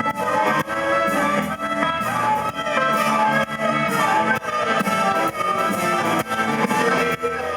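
A blues band playing live: an instrumental passage over a drum kit, with sustained brass-like lead lines.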